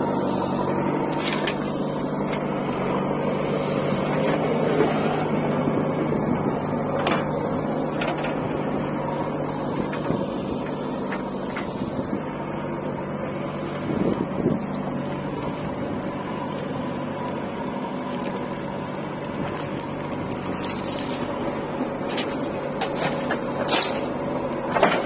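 JCB 4DX backhoe loader's diesel engine running steadily under load as the backhoe digs and swings. A few sharp knocks come near the end.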